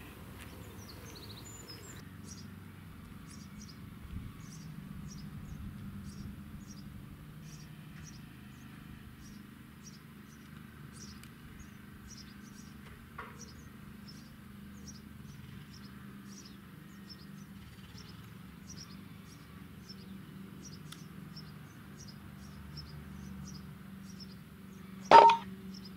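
A single sharp crack about a second before the end: a sub-12 ft-lb .177 Daystate Delta Wolf air rifle firing at a pigeon. Before it there is a low steady hum and a high bird chirp repeating about twice a second.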